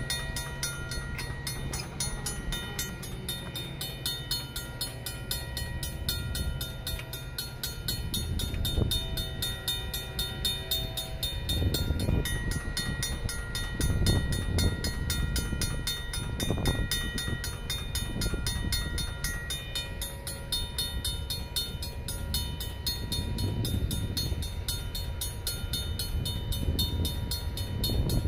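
Railroad crossing warning bells, including a Safetran mechanical bell, ringing rapidly and without a break. Under them a low rumble swells and fades from about a third of the way in.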